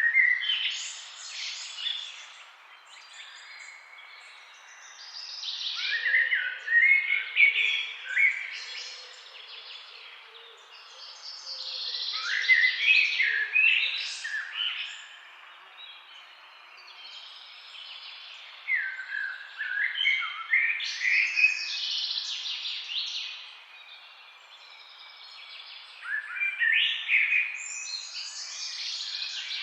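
A songbird singing a rapid, varied phrase of two to three seconds, five times at intervals of about six seconds, over a steady hiss of flowing river water.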